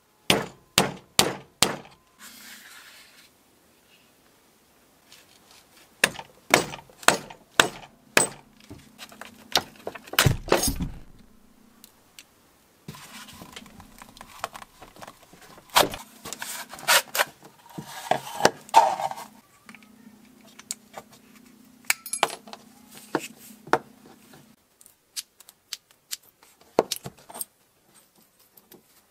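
A steel screwdriver pries and knocks at the hard plastic case of an old Makita stick battery pack, giving a series of sharp clicks, knocks and cracks. It opens with five quick, evenly spaced taps, has a heavier knock about ten seconds in, and ends in clinking and rattling as the corroded battery cells are pulled apart.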